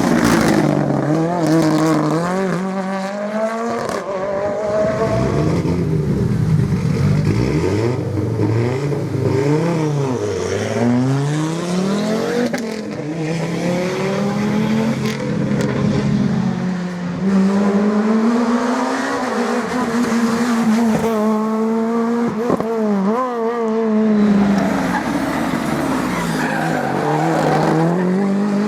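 Rally car engines at full throttle, their pitch climbing and dropping over and over as the cars accelerate, shift gears and slow for corners.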